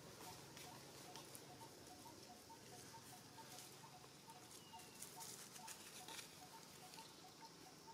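Near silence: faint outdoor ambience, with a faint, even pipping that alternates between two notes several times a second, and scattered soft crackles and rustles.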